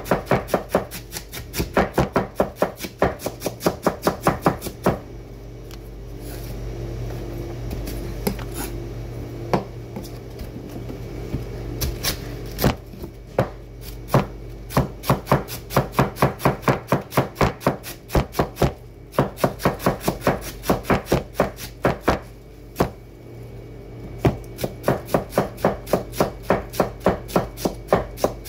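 Cleaver chopping cabbage on a wooden cutting board in quick, even strokes, about four a second, with a sparser pause of several seconds near the middle before the chopping picks up again.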